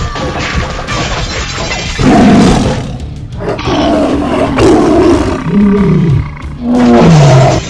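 Background music, then from about two seconds in a series of loud animal roars, a lion's roar among them, the last two falling in pitch.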